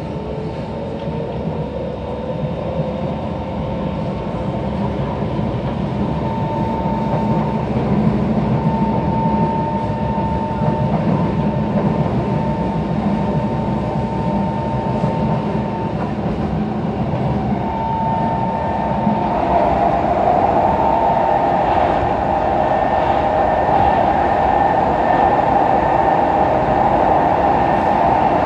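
Running noise inside a Kawasaki-built SMRT C151 metro train. The traction motors whine, rising in pitch as the train pulls away over the first few seconds, then run steadily through the tunnel. From about twenty seconds in, the whine grows louder and a high steady tone joins it as the train slows into the next station.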